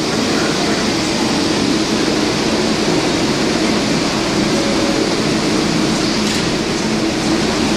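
Steady hum and hiss of an R142A subway train standing at the platform, its ventilation and equipment running.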